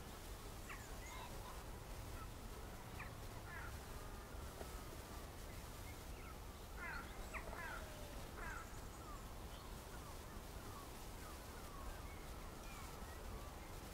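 Wild birds calling in the countryside: many short chirps and quick sweeping notes, busiest about seven to nine seconds in, over a low steady rumble.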